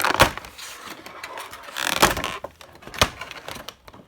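Hands handling plastic toy packaging while taking a figure out: rustling and crinkling with sharp clicks, one just after the start and another about three seconds in.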